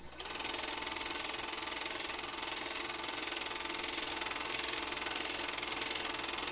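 Film projector running: a steady, fast mechanical clatter.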